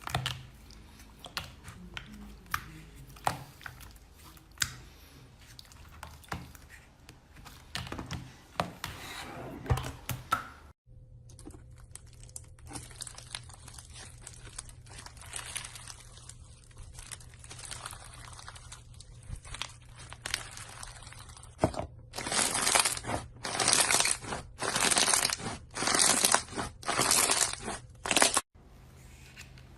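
Slime being handled, with crinkling and crunching crackles. After a cut, about two-thirds of the way in, comes a run of about seven loud crunching squeezes, roughly one a second.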